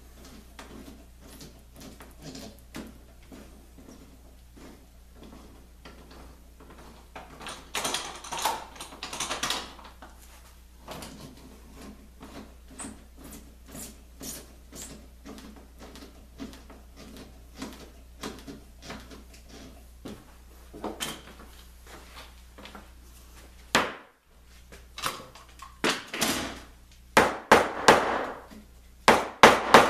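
Light clicks and knocks as bar clamps are handled on a glued-up plywood ring, with a louder scraping stretch about eight seconds in. Near the end, a rubber mallet knocks on the work several times in quick succession, the loudest sounds here.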